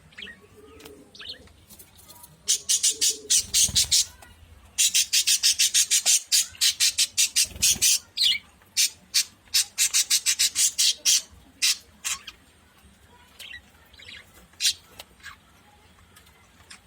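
Budgerigars chirping in quick runs of short, sharp, high calls, several a second, in three bursts, with a few softer scattered chirps near the end.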